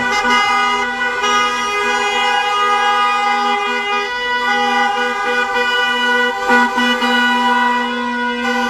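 Several car horns held down at once, making a steady blaring chord that briefly dips about six and a half seconds in.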